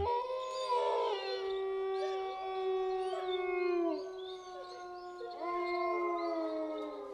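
Several canines howling together in long, overlapping howls, each held steady and then dropping in pitch as it ends.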